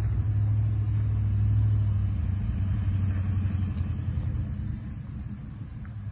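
Four-wheel-drive engine running at low revs on a slow crawl over a rutted dirt track: a steady low rumble that fades over the last couple of seconds.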